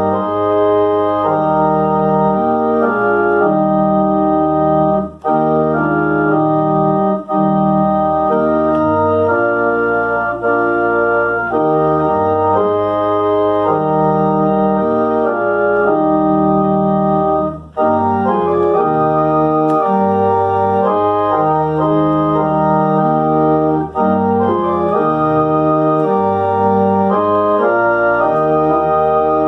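Organ playing sustained chords in a slow, hymn-like progression, with short breaks between phrases.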